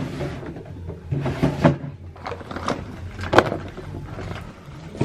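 Objects being handled in a drawer: several irregular knocks, scrapes and clatters, the loudest a little over three seconds in.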